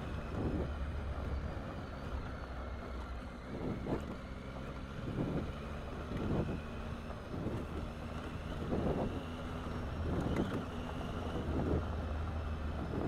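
Triumph Tiger 800's three-cylinder engine running steadily as the bike cruises on a gravel track, with irregular rushes of noise about every second or so over it.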